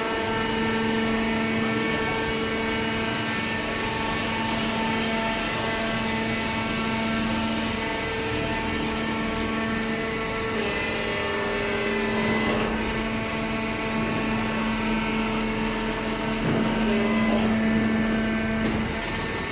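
Hydraulic cardboard baler running: a steady motor-and-pump hum with a whine. Its note shifts briefly about halfway through, and it grows a little louder near the end.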